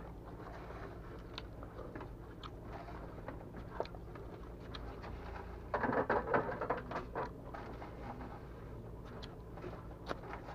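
Quiet mealtime sounds: small clicks and chewing over a steady low hum, with a short burst of louder clattering about six seconds in.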